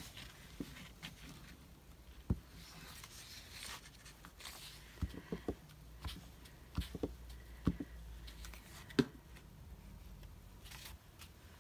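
Paper scraps being handled and rustled on a desk, with scattered light taps and knocks as pieces are set down and moved.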